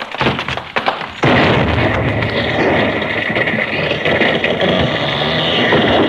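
Radio-drama sound effect of a gunpowder explosion: a few quick knocks, then about a second in a sudden loud blast that carries on as a long rumbling crash of breaking wood and falling debris for about five seconds.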